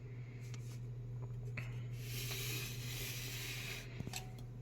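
Handling noise: a few light clicks and a stretch of rustling in the middle, over a steady low hum.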